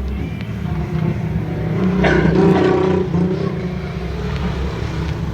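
Steady low engine drone, swelling louder for about a second some two seconds in.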